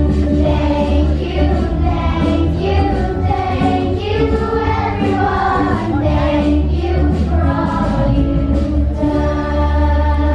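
A song with a choir singing over a steady, heavy bass line.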